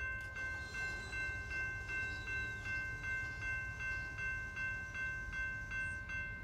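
Railroad crossing warning bell ringing in a steady, even rhythm of about two to three strokes a second as the crossing gates come down, warning of an approaching train.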